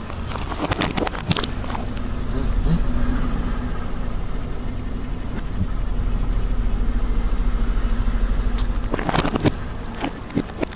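Car engine running with a steady low rumble, with clusters of crackling crunches about a second in and again near the end as the tyre rolls over and crushes objects.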